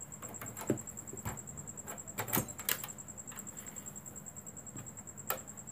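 Scattered clicks and knocks from a CRT TV's circuit board and plastic chassis being handled as the board is fitted back into the set, with a cluster of sharper knocks a little past two seconds in and a last one near the end.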